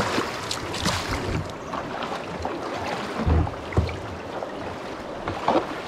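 River water rushing over rocks above a rapid, heard from a kayak, with the paddle dipping and splashing and a few low thumps.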